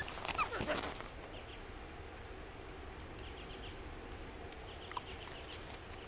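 Eurasian wolf whining: a short, high, gliding whimper in the first second, then only a faint background with a few soft ticks.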